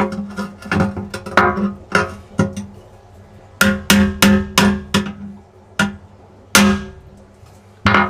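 Hammer driving a steel chisel against a glass patch and silicone on a glass aquarium's bottom pane: a dozen or so irregular sharp blows, some in quick pairs, each leaving a short ringing tone from the glass tank. There is a pause of about a second near the middle.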